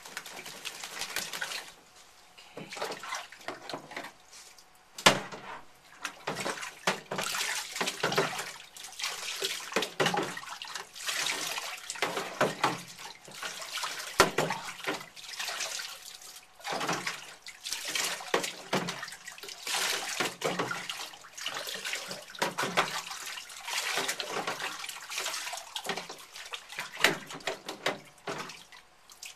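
Water splashing and sloshing in a utility sink as a wet Westie puppy is washed by hand, in irregular bursts, with a sharp knock about five seconds in.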